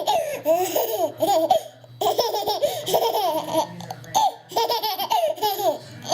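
A young child laughing, high-pitched, in several bouts of a second or two each.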